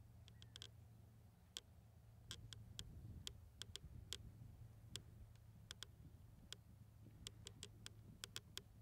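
Faint, irregular sharp clicks from a trotting horse's hooves and tack on sand footing, some in quick clusters, over a low steady hum.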